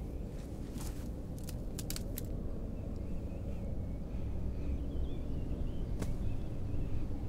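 Film sound effects over forest ambience: a steady low rumble with birds chirping, a quick run of sharp clicks and rattles in the first couple of seconds, and a single sharp snap about six seconds in.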